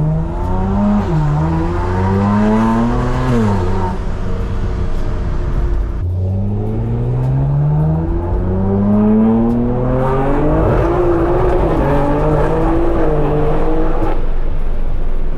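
BMW G82 M4's S58 twin-turbo straight-six through a full stainless Valvetronic exhaust, accelerating hard through the gears: the engine note climbs and drops at each upshift, twice in the first four seconds, then a longer climb from about six seconds in before it settles. The tone is mellow, with little rasp.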